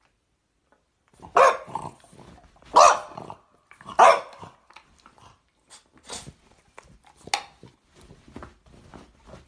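A dog barking indoors at another dog: three loud barks about a second and a half apart, beginning a second and a half in, then a few shorter, softer barks.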